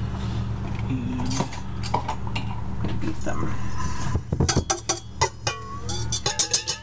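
Clinks and knocks of a stainless steel mixing bowl and utensils being handled on a kitchen counter, over a steady low hum. Music starts about six seconds in.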